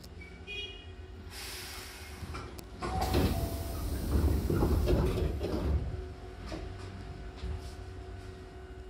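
Hankyu train car's double sliding doors opening at a station stop: a short hiss, then the door panels sliding apart for about three seconds, the loudest part, before the car settles to a steady hum.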